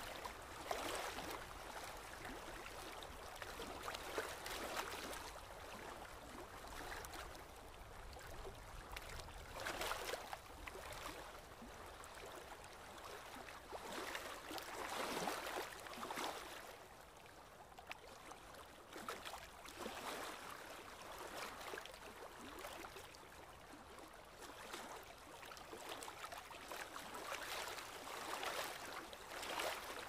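Water lapping, with wind: a steady wash of splashing noise that swells and falls back every few seconds.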